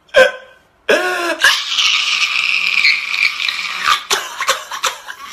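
A man wailing and sobbing loudly. After a short sob, his voice rises about a second in into a high, strained cry that is held for several seconds, with a brief break near the end.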